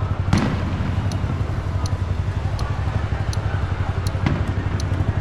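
Honda Cross Cub's single-cylinder four-stroke engine running steadily. A distant firework bang comes about a third of a second in, and a fainter one near the end.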